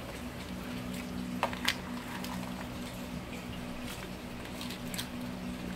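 Raw shrimp dropped with metal tongs into a pot of boiling seafood broth, with a few short clicks and splashes, the loudest about a second and a half in and another near five seconds, over the bubbling of the pot and a steady low hum.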